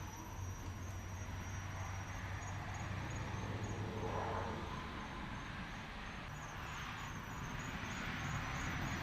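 Outdoor ambience: insects chirping in an even high-pitched pulse, about three chirps a second, over a steady low hum and background noise.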